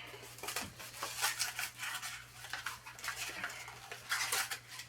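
Wrapping paper rustling and crinkling in irregular bursts as a gift is handled and wrapped, over a faint steady hum.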